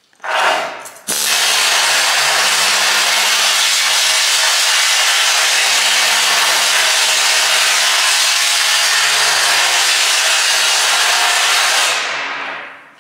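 Harbor Freight pneumatic needle scaler hammering scaly rust off a steel truck frame rail: a short burst, then a steady, loud run that fades out near the end as the gun is released.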